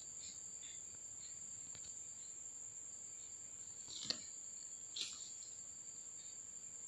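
Two soft clicks as a small plastic balm tin is handled and turned in the fingers, about four and five seconds in, over a faint steady high-pitched tone like an insect's trill.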